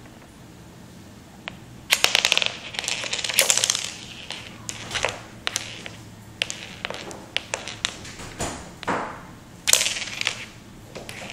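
Mini hockey toy in play on a wooden floor: sharp clacks of the little stick striking the pucks, with short scrapes, in a quick irregular series starting about two seconds in.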